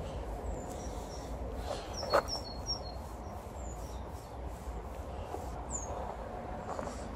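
Small birds chirping: short high chirps and little whistled glides, busiest about two to three seconds in, over a steady low background rumble. A single sharp knock about two seconds in is the loudest sound.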